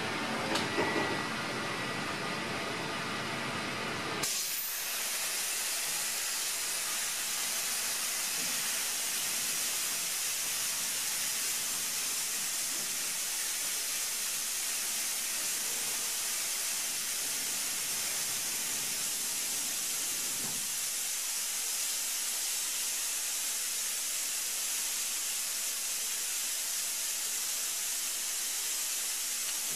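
A steady, even hiss that starts abruptly about four seconds in and runs on unchanged. Before it there is a fuller mechanical hum with a few clicks.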